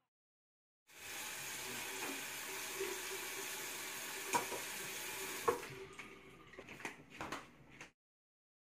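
Bathroom sink faucet running steadily into the basin, with two sharp clinks midway. The water stops about five and a half seconds in, and a few lighter knocks follow before the sound cuts off abruptly.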